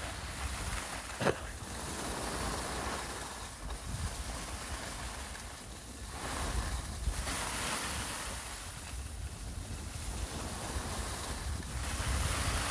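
Skis sliding and scraping over snow in repeated swells, with wind buffeting the microphone as a low rumble. A single sharp click sounds about a second in.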